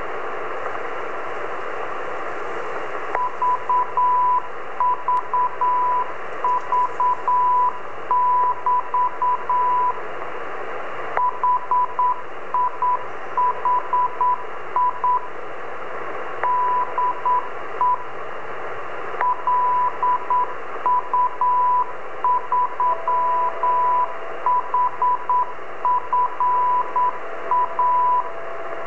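Morse code from the LU3HFA 10-metre amateur radio beacon, heard as a single-pitched CW tone keyed on and off over steady receiver hiss from a Yaesu transceiver's speaker. The beacon starts about three seconds in. Near the end a second, fainter steady carrier tone at a lower pitch comes and goes, which the uploader takes for a pirate fishing buoy.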